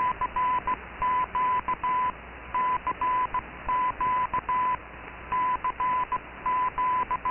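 Morse code sent as a steady single tone keyed in short and long marks, calling 'CQ DX' over and over, received over shortwave with background hiss.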